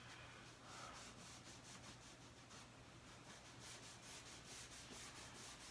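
Faint rubbing: a paper towel wiped back and forth in quick, even strokes, several a second.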